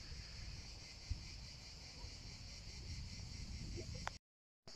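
Insects chirring steadily in a high, even chorus, over a low rumble. The sound drops out completely for a moment a little after four seconds in.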